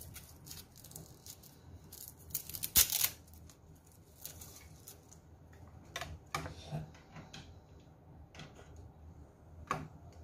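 Handling noises from a gaming headset's cable and plastic inline control box: scattered light clicks and rattles, with one louder, short rustle about three seconds in.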